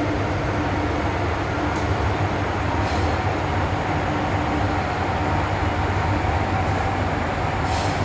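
MTR M-Train electric multiple unit heard from inside the passenger car while running: a steady low rumble of wheels on rail with a faint steady hum over it, and a few brief high hisses about two and three seconds in and again near the end.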